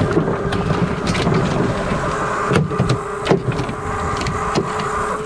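Mercury outboard motors running with a steady hum under the rush of wind and water at the boat's stern, broken by several sharp knocks.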